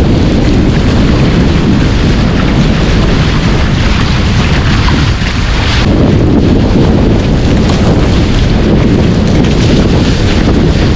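Loud, steady wind buffeting on the boat-mounted camera's microphone, mixed with water rushing and spraying past the hulls of a Hobie catamaran sailing fast in gusty wind.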